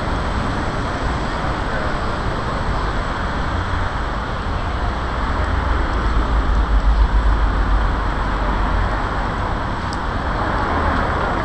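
Steady city road traffic, with passing cars making a continuous noise. A low rumble swells about six to eight seconds in.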